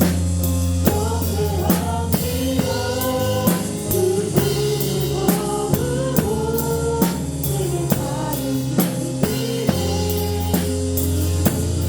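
Live church praise band playing a worship song, the drum kit up front in the mix: a steady beat of kick and snare hits under sustained keyboard chords and a sung melody.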